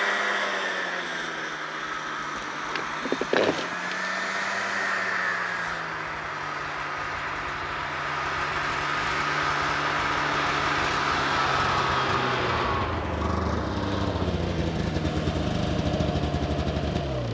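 Snowmobile engine running as a sled comes in across the ice, its pitch rising and falling a couple of times and then growing louder and deeper over the last few seconds before winding down. A single sharp knock about three and a half seconds in.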